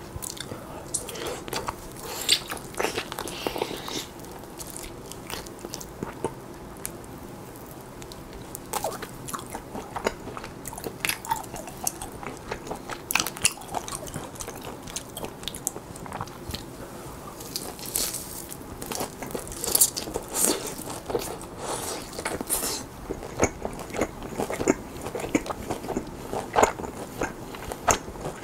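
Close-miked mouth sounds of biting and chewing grilled lamb rib chops eaten off the bone: irregular sharp clicks and short strokes, with a quieter spell about a quarter of the way in and busier bites in the second half.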